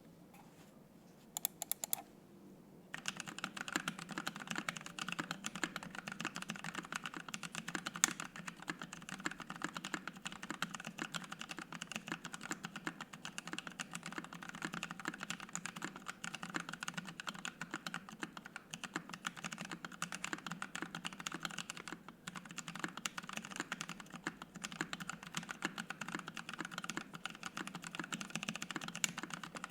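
Fast continuous typing on a Savage65 65% mechanical keyboard fitted with lubed Penguin tactile switches, an FR-4 plate and PBT keycaps, giving a steady stream of key clacks. A few single keystrokes come first, then rapid typing from about three seconds in, with a short break partway through.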